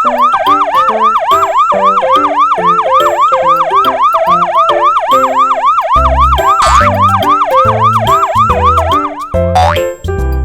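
A siren sound effect rising and falling about three times a second, played over upbeat music. A heavy bass beat joins about halfway through, and a quick rising whistle-like glide comes near the end as the siren stops.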